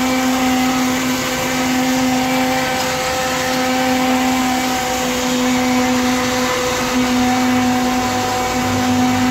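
Electric blender running steadily while blending dragon fruit juice: a constant motor whine over a hum, with a lower hum joining in near the end.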